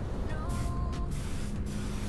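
Compressed-air spray gun spraying black gloss paint in a light coat, a steady hiss broken by a couple of brief pauses. Faint background music underneath.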